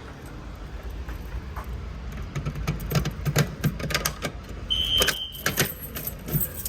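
A run of sharp clicks and rattling knocks over a low rumble. About five seconds in, a fire alarm horn gives one short high-pitched tone, and it starts sounding again at the very end.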